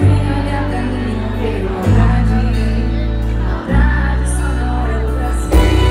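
Live forró band playing through a concert PA, with deep bass notes changing about every two seconds and singing over the music.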